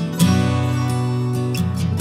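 Instrumental background music: sustained chords, with new chords struck near the start and again about a second and a half later.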